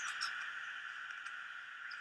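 A short pause in a starling's song: a few brief high notes right at the start, then only a steady background hiss.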